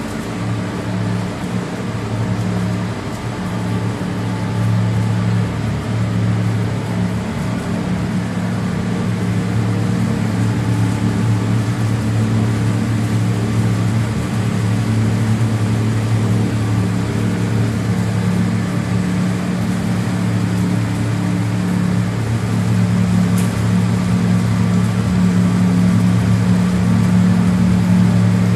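A machine motor running with a steady low hum, its pitch holding level and growing slightly louder over the stretch.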